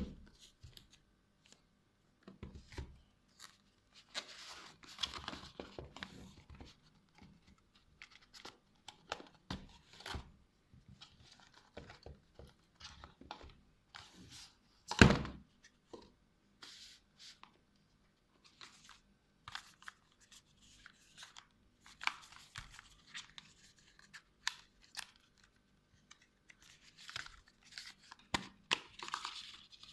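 Phone box packaging being torn open and handled: irregular tearing, crinkling and rustling with small clicks and knocks, and one much louder thump about halfway through.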